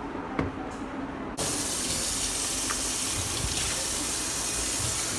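Kitchen tap running hard into a stainless-steel sink, the stream splashing over a green bell pepper being rinsed under it. The water starts abruptly about a second and a half in, after a quieter stretch with a single click.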